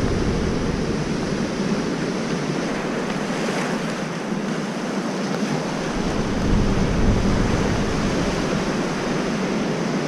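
Machine-made wave in a surfing wave pool breaking and rushing along the pool as a steady wash of surf noise, swelling a little after about six seconds. Wind rumbles on the microphone.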